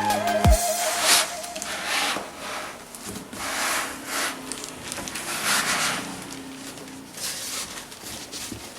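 Cardboard and packing material rubbing and scraping in repeated strokes, about one a second, as a boxed Bluetooth speaker is slid in and out of its box. Background music ends with a short falling sweep about half a second in.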